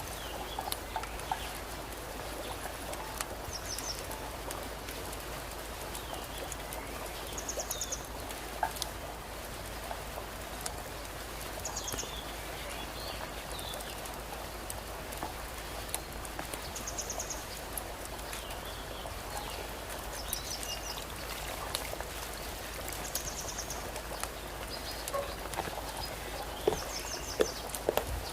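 Chicken drumsticks deep-frying in hot oil: a steady sizzle dotted with many small crackles and pops.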